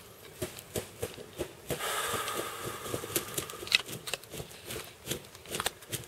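Rustling and small clicks of a person moving and handling gear inside a fabric ground blind, with a denser rush of rustling from about two seconds in lasting over a second.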